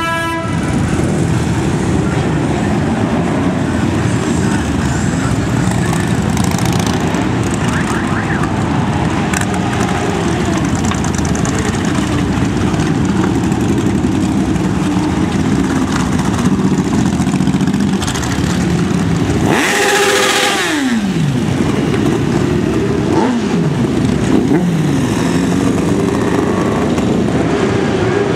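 A stream of motorcycles riding past one after another, their engines running continuously with pitch rising and falling as each goes by. About twenty seconds in, one passes close and loud, its engine note dropping sharply as it goes past.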